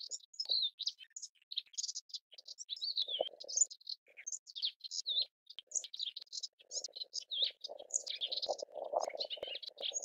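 Melodious warbler singing a fast, rambling stream of varied chirps and slurred notes without a break. From about two-thirds of the way in, a low rumbling noise comes in under the song and grows louder near the end.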